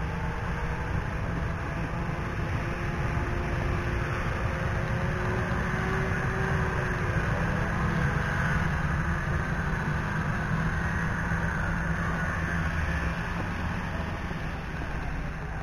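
Several snowmobile engines running, heard from a distance as the sleds ride by: a steady drone with faint engine notes sliding in pitch, slightly louder about halfway through.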